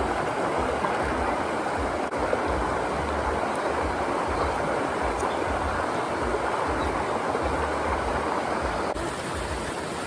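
Steady rush of a rocky stream at a waterfall, water running over stones.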